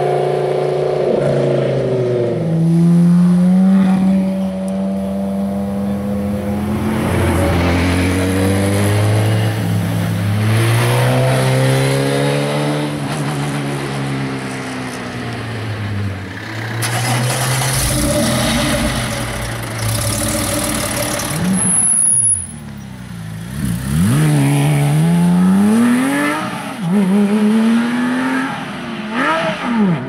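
Supercar and race-car engines accelerating hard, one car after another, their pitch climbing and dropping back through quick gear changes. At the start a Lamborghini Gallardo LP570-4 Super Trofeo's V10 pulls away.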